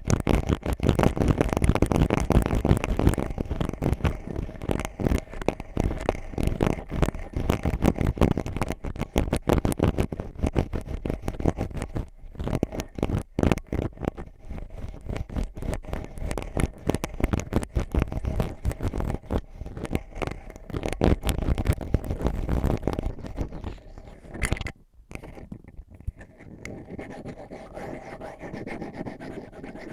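Ear pick scratching and digging in rapid, dense strokes. About 25 seconds in it stops briefly, then turns to softer, steadier rubbing.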